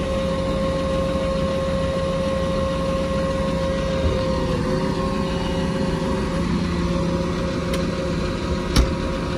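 Heavy diesel engine idling steadily with a constant whine over its low rumble, and a single sharp metallic knock near the end.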